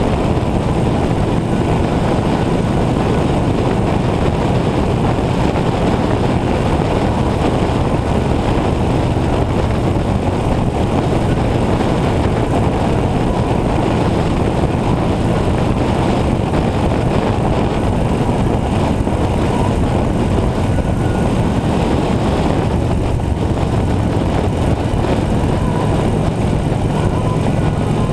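Motorcycle riding at a steady cruising speed: the engine hums steadily under heavy wind rush over the microphone.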